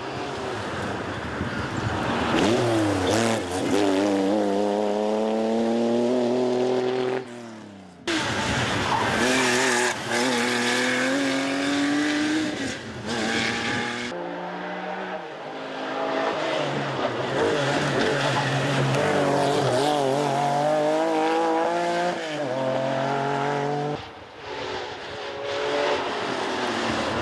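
Rally cars driven flat out past the roadside in four separate passes, edited together. Each engine note climbs in pitch and drops back with the gear changes. The first is a Lancia Stratos's V6 and the last a Porsche 911's flat-six.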